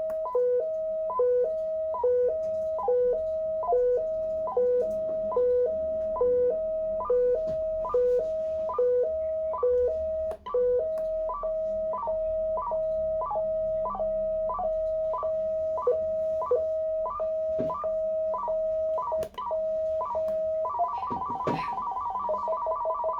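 Breadboard synthesizer's three-LED sequencer circuit beeping out a repeating pattern of electronic tones, two notes alternating about once every 0.8 s. About 11 s in the lower note drops out, leaving one steady tone with short higher blips, and near the end the pattern turns into a fast, higher warble as the speed is turned up.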